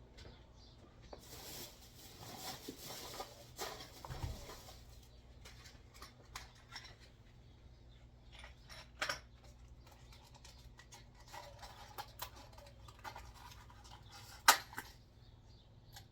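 Rummaging through workshop supplies in search of nails: scattered rustling, scraping and small clicks and clatters, busiest in the first few seconds, with one sharp knock near the end.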